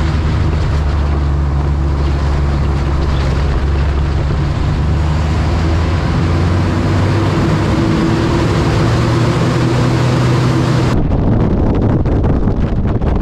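Light aerobatic airplane's piston engine and propeller droning steadily at idle power under a loud rush of airflow, heard from the cockpit; the drone's pitch shifts about halfway through. Near the end it gives way to a rougher rush of wind buffeting the microphone.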